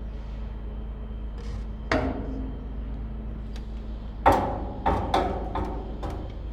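A few irregular knocks and clatters, the loudest about four seconds in, over a steady low hum.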